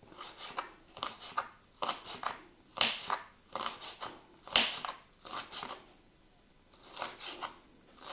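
Kitchen knife cutting boiled okroshka ingredients, a string of short, irregular cuts and scrapes about two a second, with a short pause about six seconds in.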